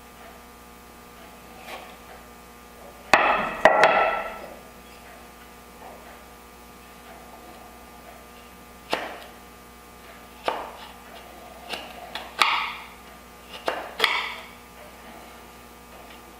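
Mallet striking a chisel while cleaning out dovetail pin sockets: a cluster of the loudest sharp knocks about three seconds in, then single knocks a second or two apart, each with a short ringing tail.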